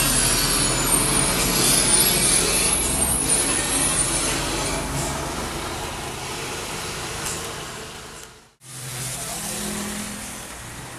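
Heavy diesel trucks passing close on a wet mountain road, engines running with tyre hiss, loudest in the first few seconds and then fading away. Near the end there is a brief gap of silence, then quieter, steadier traffic noise.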